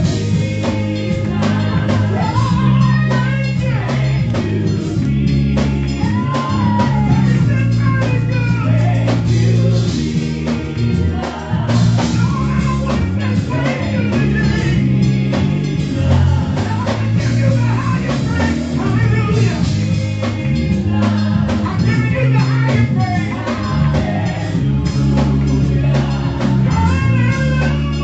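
Gospel music: a singer over a band with a steady bass line, playing without a break.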